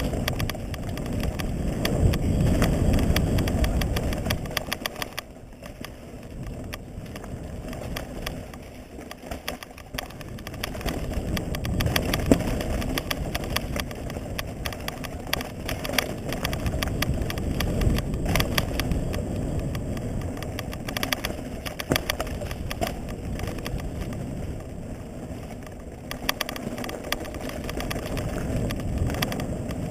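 Mountain bike descending a dirt and stony trail at speed: a low rush of wind and tyre noise over a point-of-view camera, with frequent sharp clicks and rattles from the bike jolting over roots and stones. The rush is loudest for the first few seconds, eases briefly, then builds again.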